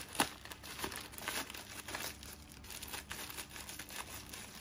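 Thin plastic packaging crinkling as hands open and pull at it, a run of irregular sharp crackles, the loudest about a quarter second in.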